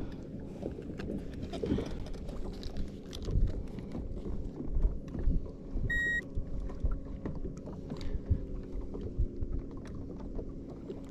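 Electric trolling motor humming steadily under a boat, with a single short high beep from the handheld trolling-motor remote about six seconds in as its button is pressed. Water slaps against the hull now and then.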